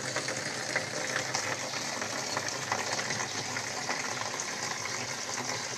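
Steady stream of water pouring from an outdoor brass tap into the opening of a white plastic container, splashing as it fills.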